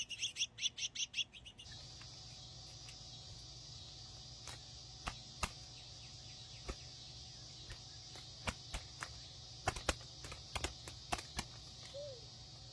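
Small birds twittering in quick repeated chirps for the first second and a half. Then a steady high hiss with scattered sharp clicks, and a single short whistle near the end.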